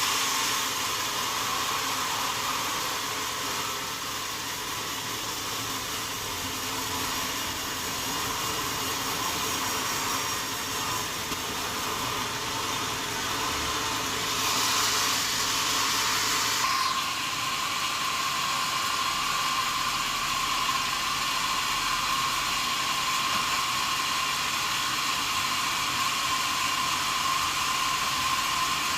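Sawmill saw running steadily on wadang wood, a constant machine noise with a steady whine. About halfway through, a louder hiss lasts roughly two seconds, then the whine settles slightly higher and stronger.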